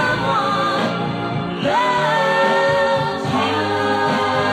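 Early-1960s pop duet recording: voices in harmony singing long held notes over the band, a new held note starting about two seconds in.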